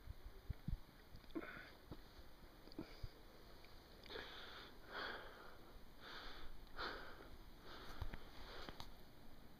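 A person's breathing close to the microphone: a run of in-and-out breaths a little under a second apart from about four seconds in, after a few soft handling knocks at the start.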